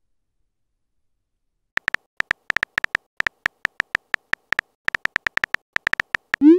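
Simulated phone-keyboard typing sounds from a texting-story app: a quick, uneven run of short clicking ticks, starting about two seconds in, as a message is typed out letter by letter. At the very end comes a short rising swoop, the app's message-sent sound.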